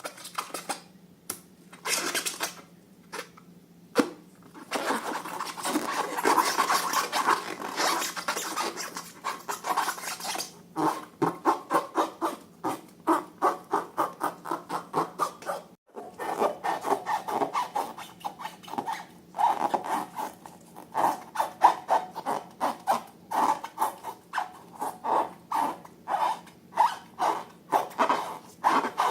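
Slime being stirred and squished, a wet rubbing and scraping that settles into rhythmic strokes about two a second.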